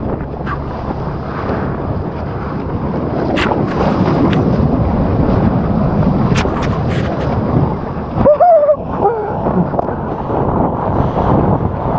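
Wind buffeting the microphone over the rush of breaking water as a boat-made wave peels along. About eight seconds in there is a brief wavering pitched sound, the loudest moment.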